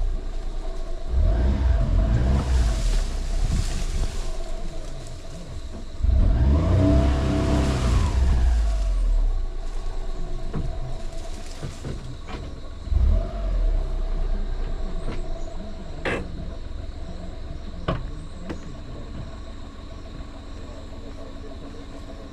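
A motor vehicle engine running with a heavy low rumble, rising and falling in pitch in two louder surges early on, then settling steadier and quieter with a few sharp clicks.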